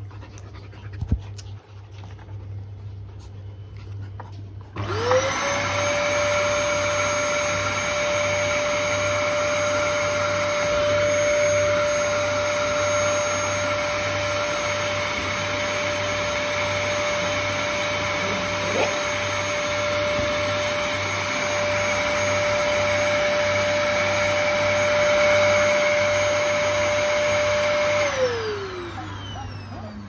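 Dyson cylinder vacuum cleaner switched on about five seconds in, its motor whine rising quickly to a steady high pitch and running evenly. Near the end it is switched off, and the pitch falls as the motor spins down.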